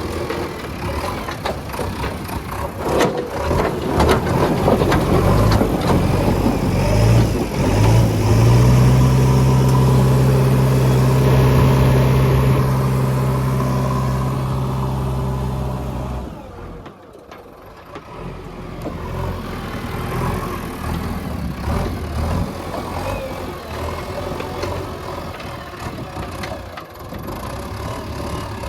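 Diesel engine of a JCB 3DX backhoe loader running, held at a steady high rev for several seconds in the middle, then dropping off suddenly and running on at a lower level.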